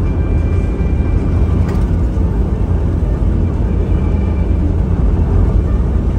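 Steady, loud low rumble of a car driving along a concrete highway, heard from inside the cabin: tyre and engine noise, with a faint steady high whine above it.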